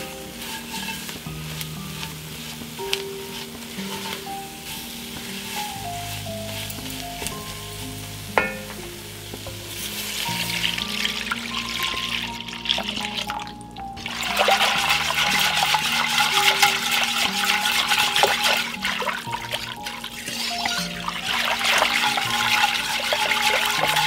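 Butter-and-flour roux sizzling as it is stirred with a wooden spoon in an enameled cast-iron pot, under background music. From about ten seconds in, cold milk goes into the pot and is whisked through the sauce, a louder, wet sloshing and scraping that lasts to the end.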